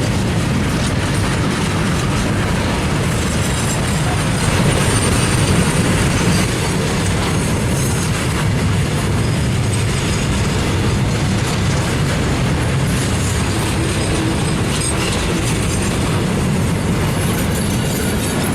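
Freight train wagons rolling past, a steady loud rumble with the clatter of wheels over the rails.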